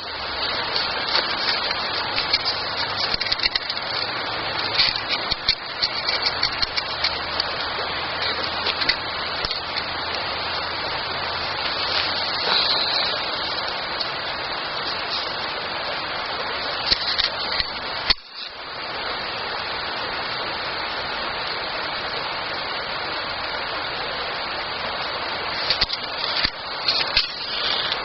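Campfire burning: a steady hiss with frequent small crackles and pops. The sound cuts out for a moment about two-thirds of the way in.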